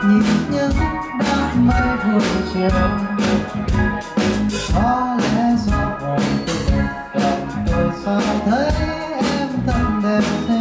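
Live rock band playing a song: a drum kit keeping a steady beat, guitar and bass, and a male voice singing into a microphone.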